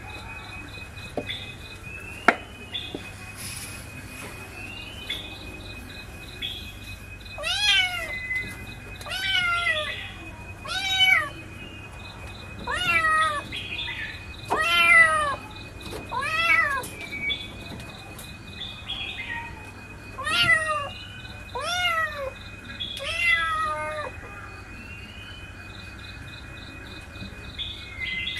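Kitten meowing repeatedly, about nine short high meows that each rise and fall, one every second or two, in the middle of the stretch.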